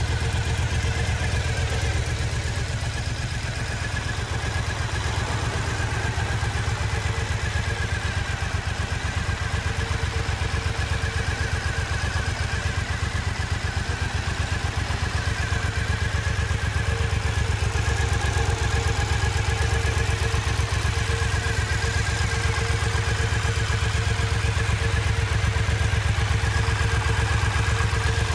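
Triumph Bonneville America LT's 865cc parallel-twin engine idling steadily.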